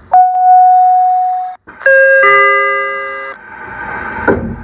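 Door chime of a Seibu 001 series Laview limited express train: a single electronic tone held for about a second and a half, then after a short break a brighter two-note chime that fades out. A steady background hum follows, with a thud about four seconds in.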